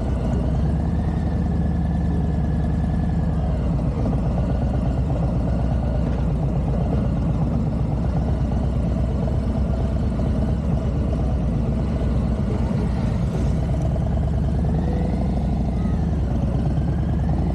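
Motorcycle engine running at a steady, unchanging pitch.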